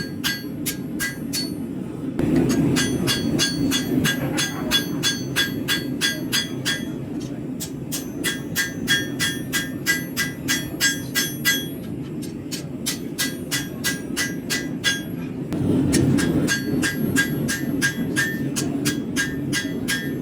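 Hand hammer forging a steel knife blade on an anvil: a steady run of ringing metal-on-metal blows, about two to three a second, fainter for a few seconds past the middle. A low rumble runs underneath and swells twice.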